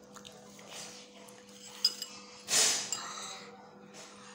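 Eating sounds at a meal of noodles: a spoon clinks once against a ceramic bowl just under two seconds in, then a short, loud hiss of air drawn in through the mouth or nose, with a few faint small clicks of utensils.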